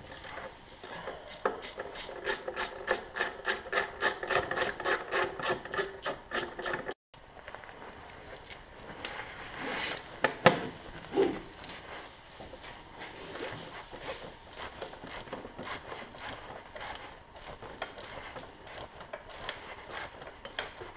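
Ratchet wrench clicking steadily at about five clicks a second as a bolt is turned. After a short break it goes on with slower, irregular clicks and scraping of metal on metal.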